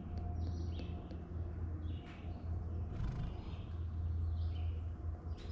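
15W-40 engine oil glugging out of a plastic jug through a funnel into the oil fill of a mini bike's engine, which was shipped without oil, in uneven low pulses. Birds chirp now and then in the background.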